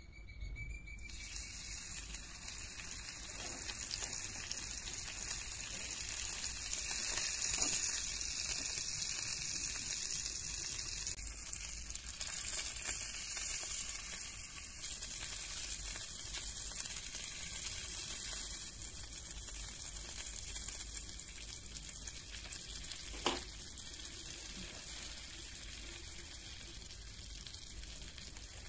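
Mutton sizzling in a miniature cast-iron frying pan: a steady hissing fry that starts about a second in as the meat goes in, grows strongest, then slowly softens. A single sharp click sounds about two-thirds of the way through.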